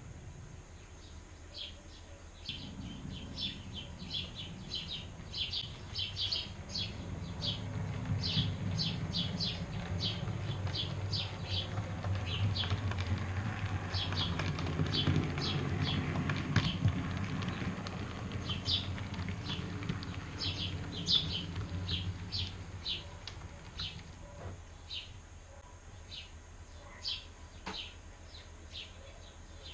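Birdsong chirping over the low rumble of a passing train, which starts about two seconds in, swells to its loudest midway and fades away. These are sound effects dubbed onto a model railway.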